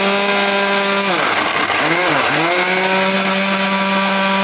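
Absons Super Blender with a 350 W motor running at speed, blending browned onions and yogurt into a paste. A steady high motor whine whose pitch sags and recovers twice, about a second in, then holds steady.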